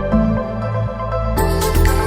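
Background music: sustained synth notes over a deep bass line, with a beat of drums coming in about one and a half seconds in.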